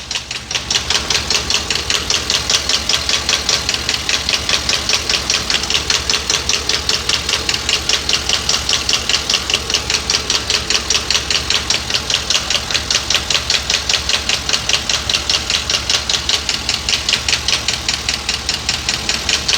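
A 7.3 L gasoline V8 idling, heard through a screwdriver held against cylinder number 3 and put to the microphone: a fast, even, regular ticking knock. The engine has a P0300 random misfire with cylinder 3 failing most, and the mechanic judges the noise is not rod knock, valve or piston but could be the camshaft.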